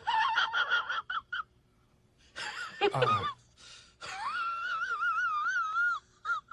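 A string of short comedy sound effects: a quick, pulsing, squeaky high-pitched laugh-like sound, then a pitch that slides steeply downward, then a long high tone that wavers up and down.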